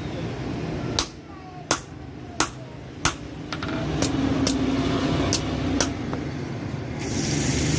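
Hand hammer striking steel on an anvil, a series of sharp ringing blows about three every two seconds, as the steel from an old bearing is forged into a half-moon knife. A steady low rumble runs underneath and grows louder from about four seconds in.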